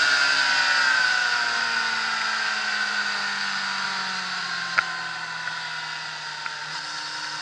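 Racing sidecar outfit's engine, heard from on board, its pitch falling slowly and its sound fading as the outfit slows down. A single sharp click about five seconds in.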